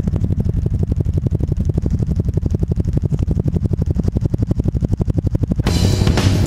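Background music: a fast, evenly pulsing bass line, with the fuller, brighter rest of the track coming in near the end.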